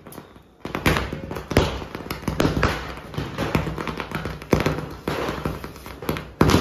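Ground firework fountain (anar) spraying sparks with a steady hiss and dense, rapid crackling pops, starting about half a second in. A louder crack comes near the end.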